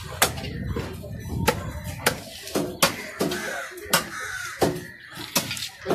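Large knife chopping through a trevally on a wooden stump chopping block: about ten sharp chops at an uneven pace, roughly one every half second.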